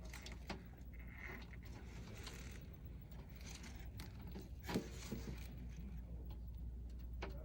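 Faint handling noises of wiring work: small clicks and scrapes as spade-clip wires are fitted onto a circuit board, with one sharper click nearly five seconds in, over a low steady hum.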